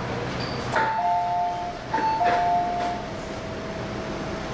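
Two-note descending ding-dong chime inside an MTR M-Train, sounded twice as the passenger doors open at a station, with short clunks from the door gear and the car's steady hum underneath.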